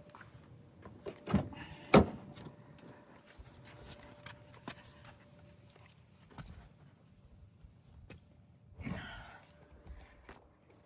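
A car door shutting with two thuds, the second and louder one about two seconds in, followed by faint clicks and a brief rustle near the end.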